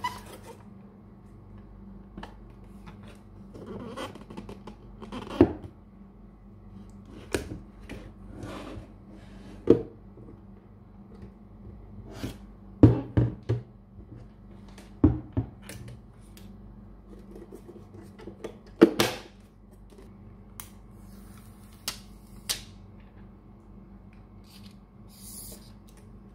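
A hard plastic case and speaker being handled: scattered plastic clicks, taps and knocks with some rubbing. The loudest are a cluster of knocks around halfway and one about three-quarters through, over a faint steady hum.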